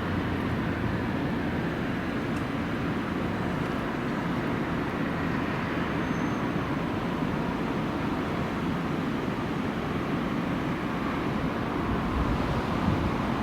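Steady low rumble of a train at the station, with no distinct clanks or horn.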